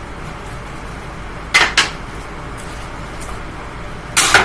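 Partly disassembled Amazon Basics box fan running, with sharp clattering hits about a second and a half in, another just after, and a longer, louder clatter near the end as small hard objects thrown into it are struck and flung by the spinning blades.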